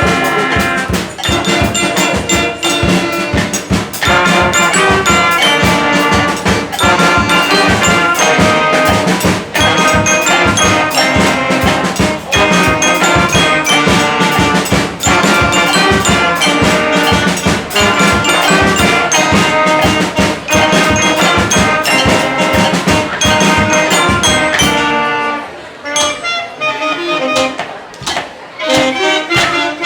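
Children's school band playing a brass piece with trumpets, trombones and drums, with a steady beat. About 25 seconds in the full band drops out, leaving a quieter, sparser passage.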